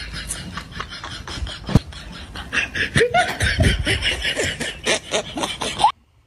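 A man laughing in a quick run of snickers that grows louder about three seconds in, then cuts off suddenly near the end.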